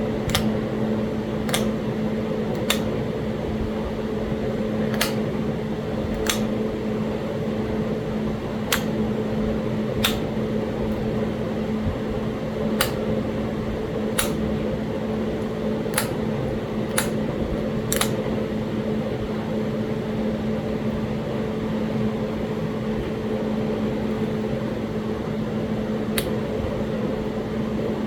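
Sharp clicks of stone being worked while flintknapping Talahata quartzite, about a dozen at irregular intervals of one to two seconds, then a pause and one more near the end. A steady mechanical hum runs underneath throughout.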